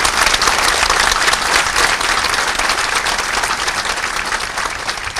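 A crowd applauding, a long round of clapping that thins out near the end.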